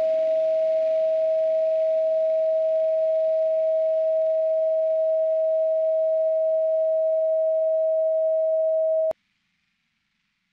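A steady, pure 639 Hz sine tone, the solfeggio-style 'relationship' frequency, held at one pitch; it cuts off suddenly about nine seconds in.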